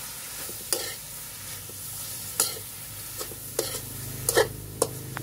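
Metal spatula stirring and scraping in a wok of frying chicken, pork and long beans, with several sharp clinks against the pan over a steady sizzle.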